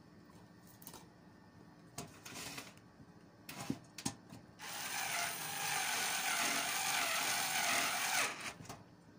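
Cordless electric screwdriver driving a screw to fix a computer power supply into its case: a few clicks and knocks as the screw is set, then about three and a half seconds of steady whirring from about five seconds in.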